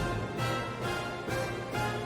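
Background music: orchestral-sounding theme music with a regular pulse of accents about every 0.4 s.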